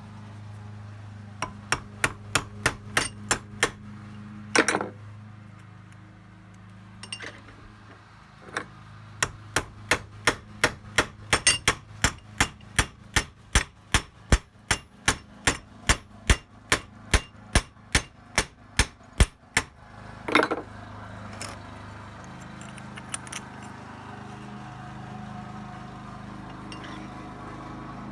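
Hammer striking steel parts: a short burst of blows, then a long even run at about three blows a second, each ringing sharply. These are blows on a truck's window crank and door handle mechanism, most likely breaking its spot-welded joint apart.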